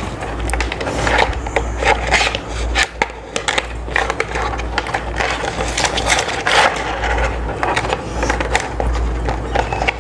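Thin plastic transparency sheet rustling and crinkling as it is slid into the slots of a 3D-printed plastic face-shield frame. Plastic scrapes and clicks against plastic as the frame is flexed.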